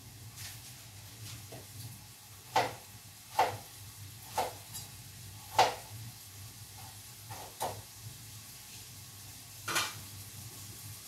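A knife knocking on a cutting board, about seven sharp, irregularly spaced strikes, over a steady low hum.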